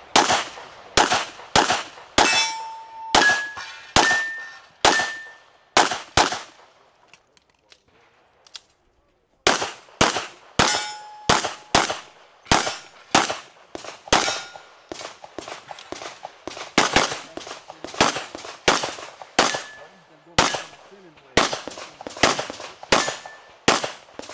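Handgun fired rapidly through a practical shooting stage, dozens of shots mostly in quick pairs, with a break of a couple of seconds about seven seconds in. Several hits are followed by a short ringing tone from struck steel targets.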